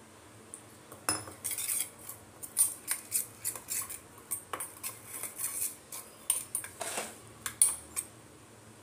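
Steel spoon scraping and clinking against a stainless steel bowl, stirring spice powders and a little water into a masala paste. The scrapes and clicks come irregularly, starting about a second in.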